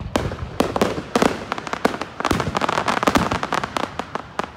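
Aerial fireworks going off overhead: a rapid run of sharp bangs and crackles, thickest in the middle, that thins out and stops near the end.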